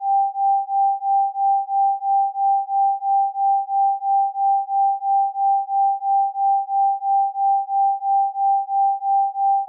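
Isochronic tone: a single pure mid-pitched sine tone switching evenly on and off, about three pulses a second, in the style of a brainwave-entrainment beat.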